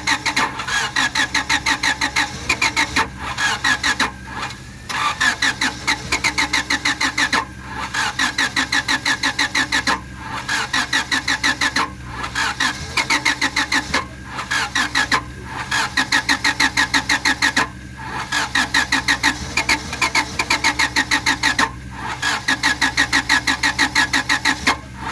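1997 Honda Civic's four-cylinder engine being cranked by the starter motor: a fast, even chugging in runs of a few seconds, each broken by a brief pause before it cranks again. The engine never catches, the sign of a crank-no-start fault.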